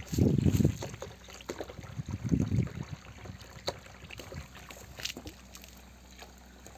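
A steady stream of water from a 24 V DC pump's delivery hose pouring and splashing into a tub of water. Two brief low rumbles on the microphone come within the first three seconds.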